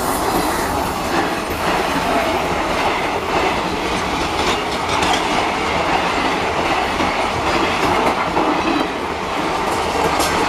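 Indian Railways passenger coaches rolling past at speed: a steady rumble and clatter of steel wheels on the rails.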